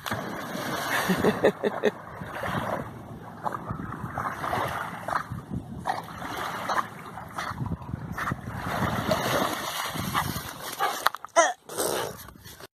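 A dog splashing and paddling through shallow seawater, with water churning and slapping around it. Near the end there is a short wavering whine from the dog.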